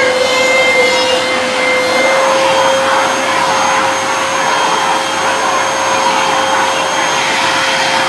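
Neabot P1 Pro pet-grooming vacuum running steadily as its brush head is drawn through a beagle's coat, sucking up loose hair. The rush of suction carries a constant motor whine, and a higher whistle drops out about two seconds in.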